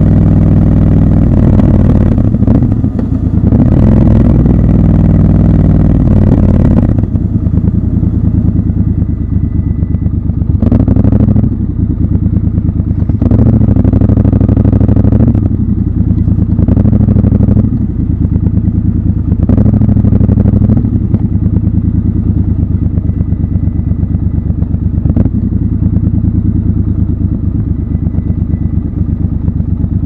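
Triumph Scrambler's parallel-twin engine riding at road speed with wind noise for the first seven seconds or so, then dropping to low revs, with a handful of short throttle openings while the bike rolls slowly over gravel, with some clatter.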